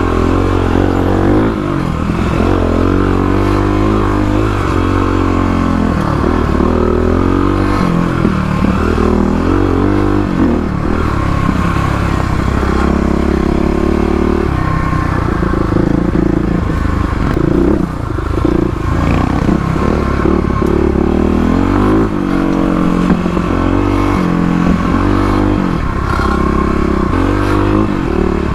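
Single-cylinder Kawasaki KLX351 dirt bike engine with an aftermarket FMF header and PowerCore exhaust, revving up and down continually as it is ridden over an off-road trail.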